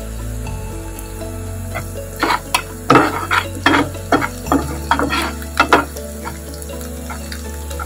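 A steel spatula stirring and scraping frying onions and spice paste in hot oil in a metal wok, with a steady sizzle. A run of sharp scrapes and clinks against the pan comes from about two seconds in to about six seconds in.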